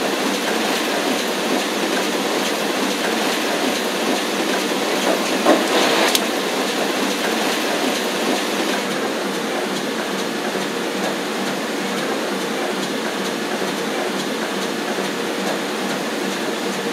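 Sheet-fed banknote printing press running, a steady mechanical noise with a rapid clatter, and one sharp click about six seconds in.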